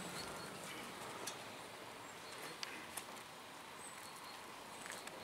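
Quiet open-air ambience with a few soft footsteps and scattered faint clicks on a dirt path.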